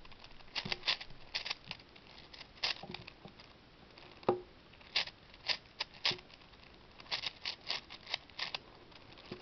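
Plastic layers of a V-Cube 6 puzzle cube being turned quickly by hand: irregular clicks and clacks, some in quick runs of several turns.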